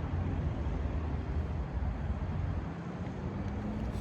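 Road traffic passing: a steady low rumble of engines and tyres that eases off slightly near the end.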